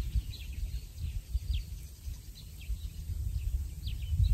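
Wind rumbling on the microphone, with faint short bird chirps now and then.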